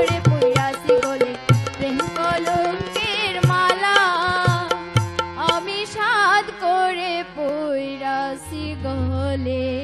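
Sylheti dhamail folk song music: a wavering melody over steady drum beats for the first five seconds or so, thinning out to held notes over a low drone near the end.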